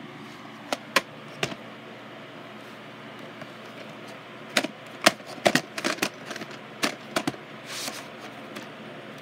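Plastic VHS cassettes and cases being handled: a scatter of sharp clicks and knocks, a few in the first second and a half and a cluster from about four and a half to seven seconds, with a brief rustle near the end, over steady background noise.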